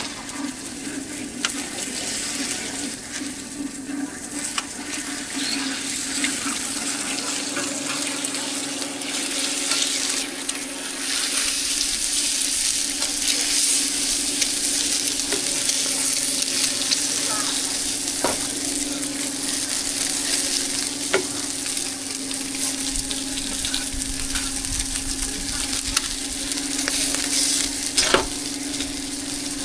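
Food frying and sizzling in hot oil, the sizzle growing louder about eleven seconds in, over a steady low hum, with a few sharp clicks of utensils.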